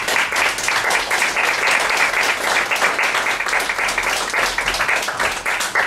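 Audience applauding: many people clapping steadily, thinning a little near the end.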